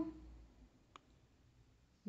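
Near silence with room tone and a single faint, short click about a second in.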